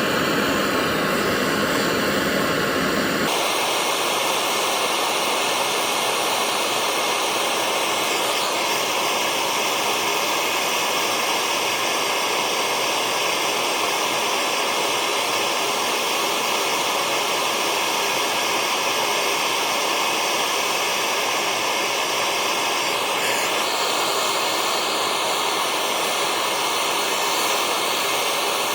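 Gas blowtorch flame hissing steadily as it heats a seized nut on the Lister vaporiser to free it without snapping it. About three seconds in the sound changes and loses its low rumble.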